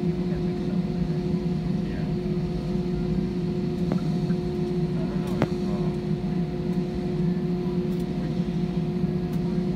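Jet airliner cabin noise during taxi: a steady low rumble from the engines at idle with a constant whine over it, and two small clicks about four and five seconds in.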